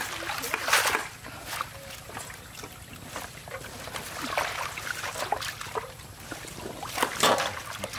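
Water splashing and sloshing in a metal basin as hands wash bunches of leafy green stems and lift them out dripping, in irregular splashes that are loudest about a second in and again near the end.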